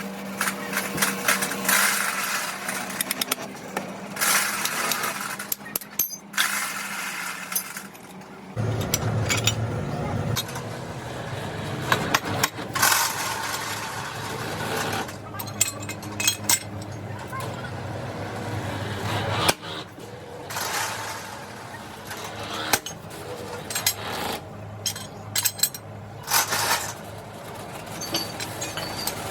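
Metal workshop sounds: repeated metallic clinks and knocks from work on steel track-chain parts, with a machine starting to hum about eight and a half seconds in and running on.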